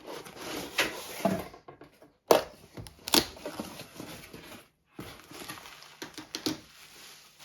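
Cardboard box and plastic packaging being handled and opened, rustling with several sharp clicks and taps.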